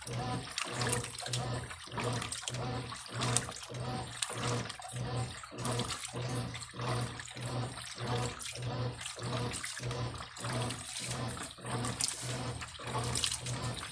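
Brastemp Eletrônica washing machine agitating a load in water, its motor hum cutting in and out about twice a second as the agitator swings back and forth, with water sloshing.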